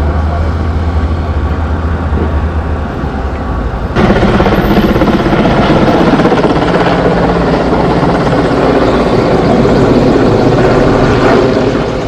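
Heavy truck engine running steadily with a low hum under the rush of water-cannon spray. About four seconds in, the sound cuts to a louder firefighting helicopter, its rotor beating steadily overhead.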